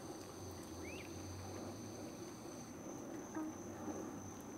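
Insects trilling: a steady high-pitched drone, with fainter, higher parts that stop a little past halfway through.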